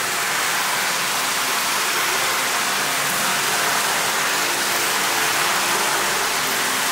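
Steady rushing of flowing water in a stone bathhouse pool.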